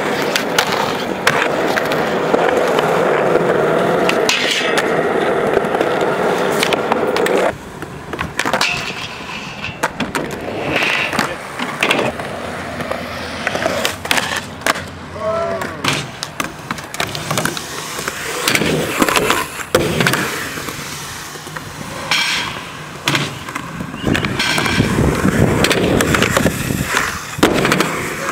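Skateboard wheels rolling on a concrete skatepark, a steady loud roll for about the first seven seconds that then drops off, followed by scattered sharp clacks and knocks of the board popping and landing tricks.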